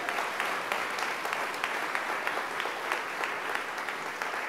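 Audience applauding: many hands clapping at once, easing off slightly near the end.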